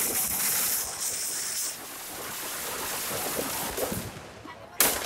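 Firecrackers packed inside a burning Dussehra effigy going off as a dense crackle and hiss, heaviest at first and thinning out, with one sharp loud bang near the end.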